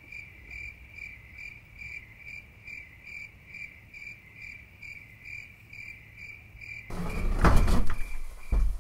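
A cricket chirping steadily in short high chirps, about two a second. About seven seconds in, a loud burst of noise and knocks breaks in, followed by a heavy thump near the end.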